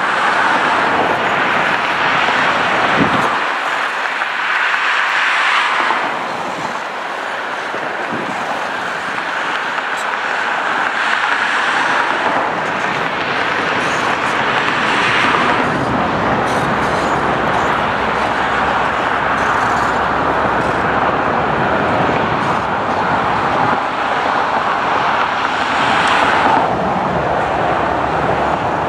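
Road traffic: a steady rush of tyre and road noise, with three vehicles passing close by, a few seconds in, about halfway and near the end.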